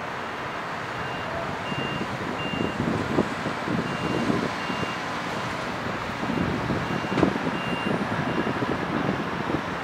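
A vehicle's reversing alarm beeps at one high pitch, about three beeps every two seconds, over the rumble of lorry engines as trucks drive off a ro-ro ferry's stern ramp onto the quay.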